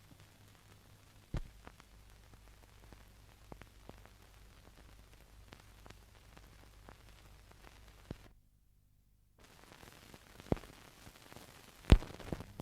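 Faint hiss and low hum of an old home videotape recording, with scattered clicks and pops. About eight seconds in it drops to dead silence for about a second, and a louder pop comes near the end.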